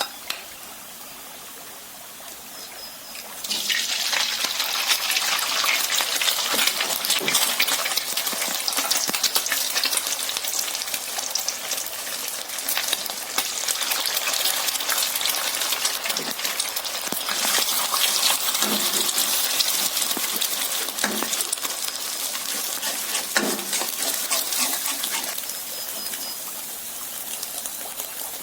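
Food frying in margarine in a hot pan: a faint hiss at first, then loud sizzling and crackling that starts suddenly about three and a half seconds in as ingredients go into the pan, with spatula strokes every few seconds.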